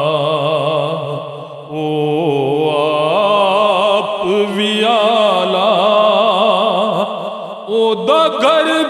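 A man's solo voice singing a Punjabi naat, stretching the words into long, ornamented held notes with a wavering vibrato. There are brief breath pauses about two seconds in and near the end.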